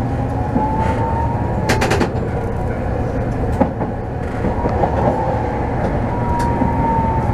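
A Toden Arakawa Line streetcar running along its track, heard from inside the cab: a steady rumble of wheels and motor with a faint high whine that rises slightly and then falls. A quick cluster of clicks sounds about two seconds in.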